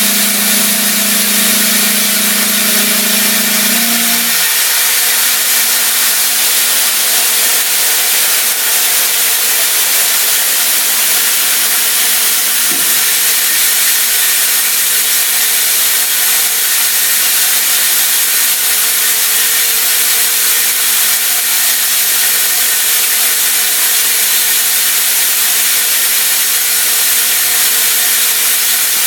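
Haas CNC mill cutting AlSiC with a CVD diamond end mill under flood coolant: a steady hiss of coolant spray and cutting, over a constant machine hum. About four seconds in, the hum's pitch shifts and the low rumble drops away.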